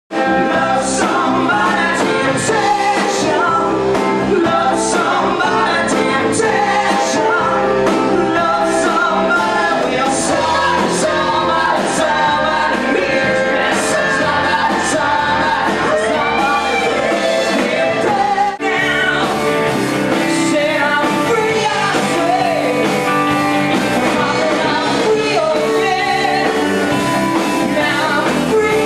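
Rock band playing live: electric guitars through amplifiers, a drum kit with regular cymbal strokes, and a man singing into a microphone. The sound breaks off for an instant about two-thirds of the way through, where the music jumps.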